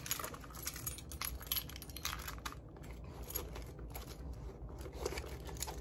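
Handling noise as small leather goods (a key holder and a card holder) are pushed into the compartment of a small monogram canvas handbag: many small clicks and rustles.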